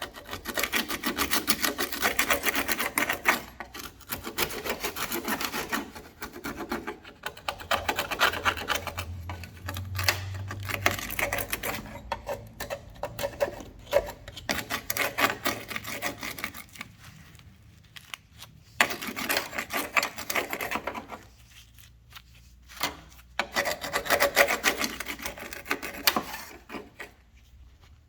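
Rapid back-and-forth abrasive strokes worked by hand on car body filler, going in several bursts with short pauses between them.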